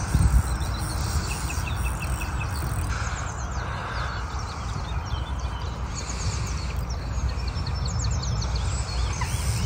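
Birds singing in short, repeated runs of high chirps over a steady low rumble of wind on the microphone.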